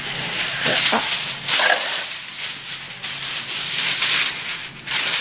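Aluminum foil being pulled off the roll from its box, torn off and crinkled, in a series of crackling rustles.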